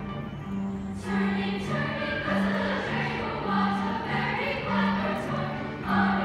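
Middle school women's choir singing over a low accompaniment of evenly repeated notes; the voices come back in strongly about a second in.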